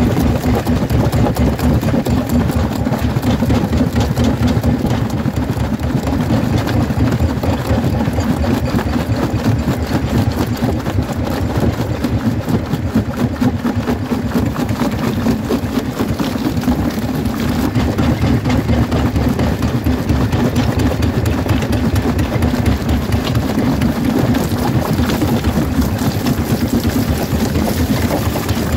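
Jaw crusher running and crushing stone between its corrugated jaws: a steady, heavy machine drone with dense, continuous cracking and crunching of rock.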